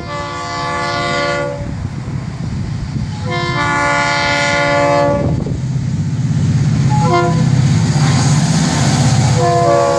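Florida East Coast freight locomotive's air horn sounding the grade-crossing signal: two long blasts, a short one, and a final long one starting near the end that dips slightly in pitch. Underneath, the rumble of the approaching diesel locomotives grows louder.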